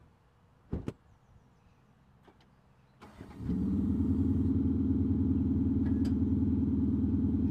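A car door shuts with a thud about a second in. About three seconds in, the Audi SQ5's 3.0-litre V6 TDI diesel starts and settles into a steady idle, heard from behind at the tailpipes.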